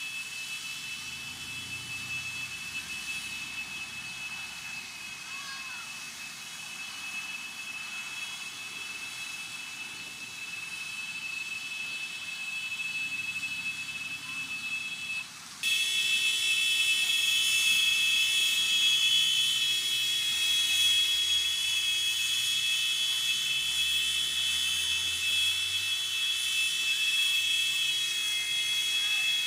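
Fire hydrant spouting a high-pressure water jet: a steady rushing hiss with a high whine over it, jumping much louder about halfway through and holding steady after.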